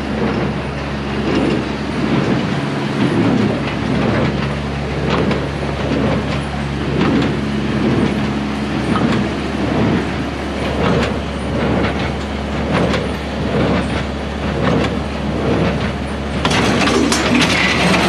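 Large square baler running on a test after knotter maintenance: steady drive hum with a regular knock about once a second from the plunger stroke. The mechanism gets louder and rattles near the end.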